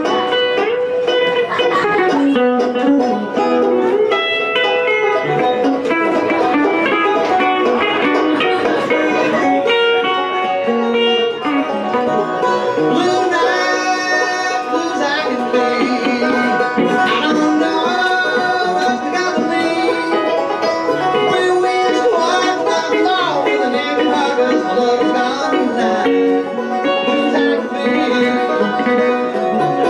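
Banjo and electric guitar playing a bluegrass tune together live, a steady stream of picked notes with a few sliding, bent notes partway through.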